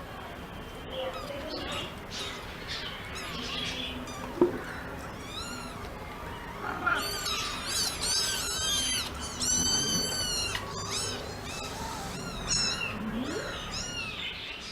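High-pitched animal calls: a run of quick, squeaky, arching calls. They come thickest in the middle of the stretch, over a steady noisy background.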